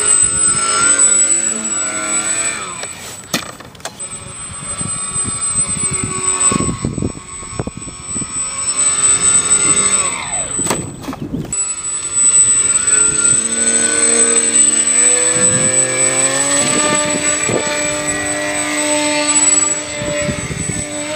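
Twin electric motors and propellers of a small foam RC plane whining in flight, their pitch stepping and gliding up and down as the throttle changes. Wind rumbles on the microphone.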